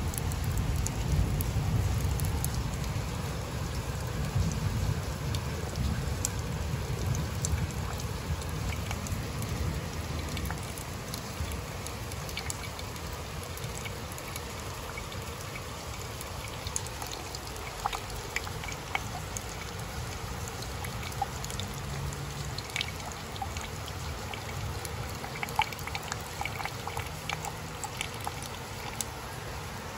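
Steady rain falling on leaves, with scattered individual drops ticking sharply. A low rumble is strong in the first few seconds and dies away.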